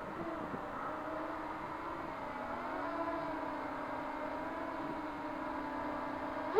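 Racing quadcopter's four 2204 2300 kV brushless motors spinning 5-inch props in flight: a steady droning whine that dips and rises a little in pitch as the throttle changes.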